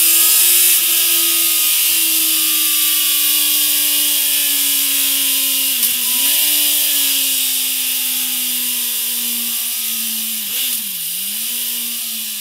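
Kawasaki Z900's inline-four engine through a MIVV MK3 slip-on exhaust, held at high revs with a steady note that slowly sinks in pitch. The pitch dips briefly and recovers twice, about 6 seconds in and again near 11 seconds.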